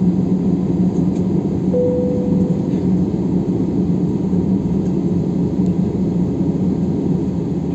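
Steady cabin rumble inside an Airbus A320 taxiing, with the engines running and a constant low hum. A brief steady tone sounds once, about two seconds in.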